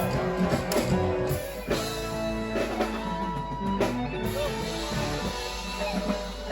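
Live band playing an instrumental stretch with no singing: guitar over a drum kit, with held chords underneath.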